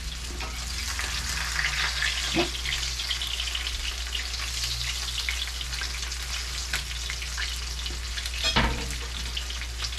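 Fish frying in hot oil: a steady sizzle with scattered crackling pops.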